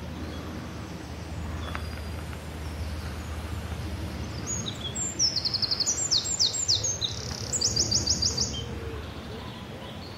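A songbird singing: several quick runs of short, high, downward-sliding notes, starting about four and a half seconds in and stopping shortly before the end, over a steady low outdoor background rumble.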